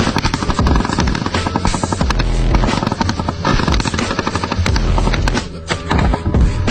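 Rapid automatic gunfire mixed with background music, with a short lull about five and a half seconds in.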